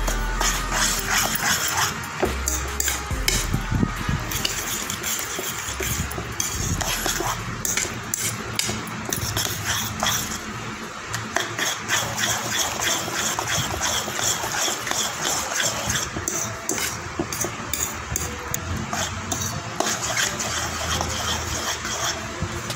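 A spoon stirring and beating a thick egg batter with chopped onion and gram flour in a bowl: continuous wet slopping with the spoon clicking and scraping against the bowl.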